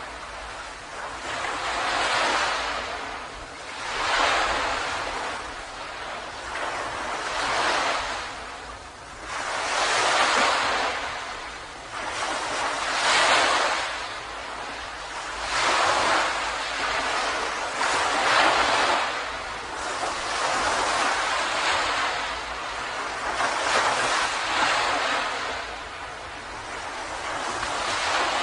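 Ocean surf washing onto a beach, the waves swelling and receding about every two to three seconds.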